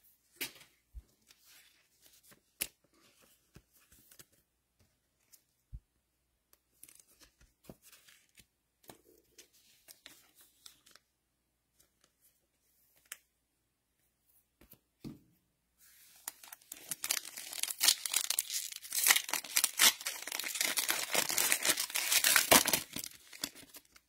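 Foil wrapper of a Panini Mosaic football card pack being torn open and crinkled, loud for about seven seconds near the end, after a long stretch of faint scattered clicks of card handling.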